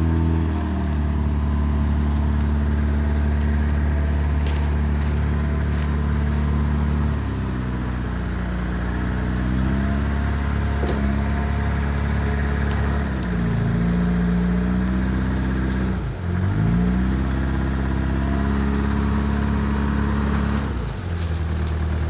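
Diesel engine of heavy logging equipment running close by under load, its speed dropping and picking back up several times, with one sharp dip and recovery partway through.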